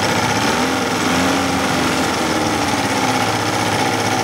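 1980s Suzuki DT-25 two-stroke outboard motor running at a steady speed, a rapid even engine clatter; the owner finds it not running as smoothly as it should.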